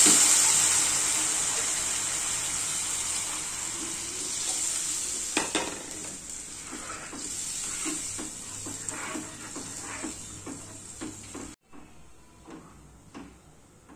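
Water sizzling in a hot black kadai of roasted vermicelli, the hiss fading steadily. From about five seconds in, a spoon stirring and knocking against the pan, and the sound drops suddenly near the end.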